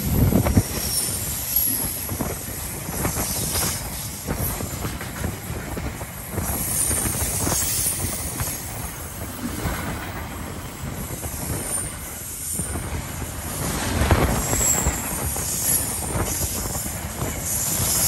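Loaded freight wagons of a KiwiRail train rolling past: a steady rumble with wheels clattering over the rail joints, and brief high-pitched wheel squeals now and then.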